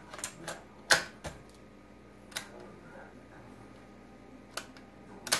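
Sharp mechanical clicks and clunks from a Marantz PMD201 portable cassette recorder as its cassette door is pressed shut and its piano-key transport buttons are pressed. A quick cluster of clicks comes in the first second, the loudest about a second in, then single clicks a few seconds apart.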